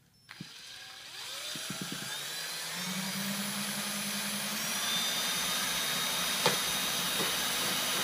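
Cordless drill running, its bit boring a hole through the side of a thin plastic basket. The motor speeds up over the first couple of seconds, then runs steadily and cuts off suddenly at the end.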